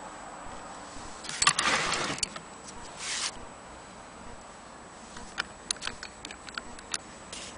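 Handling noises from an antique Frister & Rossmann hand-crank sewing machine. A louder scraping rush comes about a second and a half in, and a shorter one near the middle. In the last few seconds there are light, irregular clicks as the crank handle is gripped and worked.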